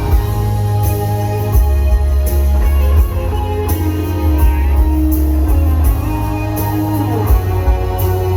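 Live rock band playing an instrumental passage: guitar over heavy bass and drums, with regular cymbal hits and a gliding note near the end.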